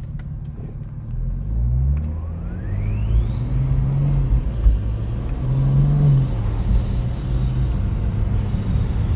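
Triple-turbocharged BMW 335d's 3.0-litre inline-six diesel accelerating hard on about 65 psi of boost. The engine note climbs, and a thin turbo whistle rises steeply from about two seconds in, peaks a few seconds later, then slowly falls.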